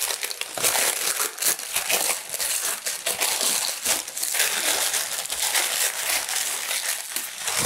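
Sheet of baking paper crinkling and rustling continuously as it is handled and pulled out from under a freshly baked crusty round loaf.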